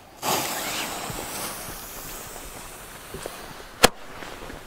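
Small firecracker's fuse lit with a gas torch lighter and hissing for about three seconds, then a single sharp crack near the end as the firecracker goes off.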